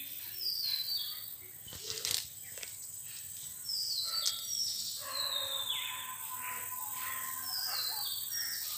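A bird calling over and over: short high chirps that step down in pitch, often in quick pairs. A sharp knock about two seconds in.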